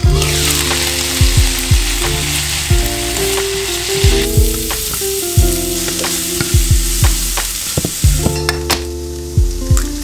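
Vegetables sizzling in a hot frying pan, loudest and hissiest for the first four seconds or so, then softer while a spatula stirs sliced onions. Background music with a steady beat runs underneath.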